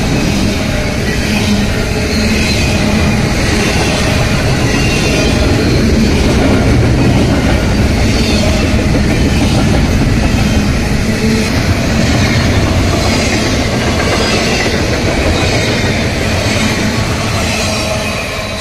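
Double-stack intermodal well cars of a freight train rolling past close by: a steady loud rumble and rattle of steel wheels on the rail, with faint squealing from the wheels. The sound begins to fade near the end as the last car goes by.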